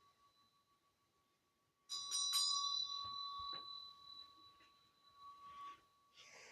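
A bell struck with a quick cluster of strokes about two seconds in, then ringing on with clear sustained tones that slowly fade.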